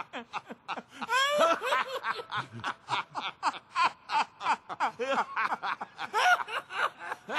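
Several men laughing together in a quick run of short chuckles at overlapping pitches.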